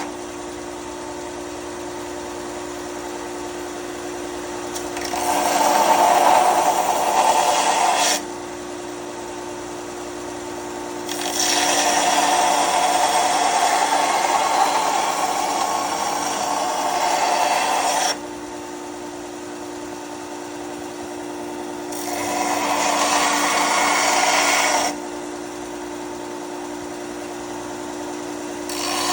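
Bauer belt and disc sander running with a steady hum, its factory belt feeling like about 80 grit. Three times a workpiece is pressed to the abrasive for a few seconds, bringing up a harsh grinding noise, and a fourth pass starts near the end.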